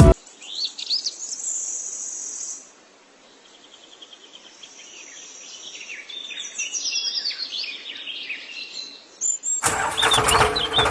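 Birds chirping and calling in quick, repeated short notes. Near the end a loud noisy sound cuts in abruptly.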